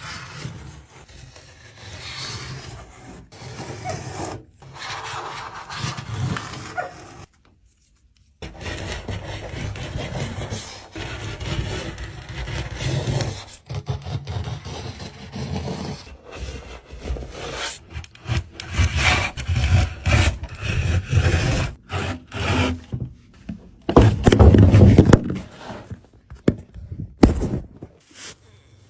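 Thick built-up wax being scraped off a surfboard: repeated rasping scrapes in irregular runs, with short breaks and a brief silent gap.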